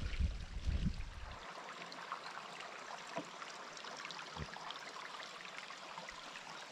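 Steady rush of running water, a small stream or runoff trickling. Wind buffets the microphone for the first second and a half, then stops suddenly; a few faint knocks follow.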